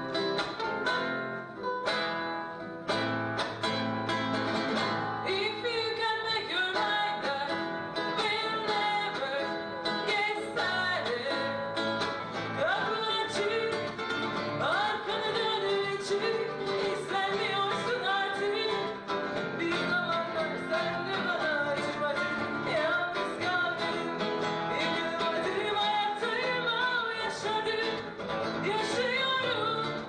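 Two acoustic guitars played together, plucked and strummed, with a voice singing over them from about five seconds in.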